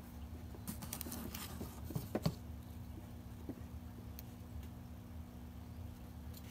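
Light clicks, taps and rustling as a 3D-printed plastic rock slider is picked up off a cardboard box, with a couple of sharper taps about two seconds in, over a steady low hum.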